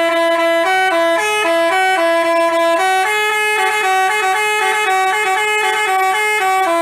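Telolet musical horn of the Basuri type playing a quick tune that hops between a few close notes several times a second, without a break.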